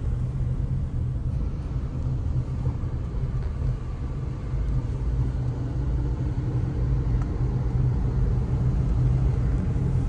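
Steady low rumble of a car on the move, heard from inside the cabin: engine and road noise with no distinct events.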